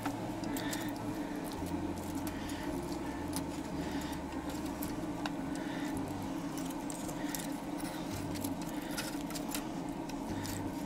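Light, scattered metallic clicks and scrapes of a fork against a hinged wire grill basket as grilled chicken pieces are pried loose from the wires.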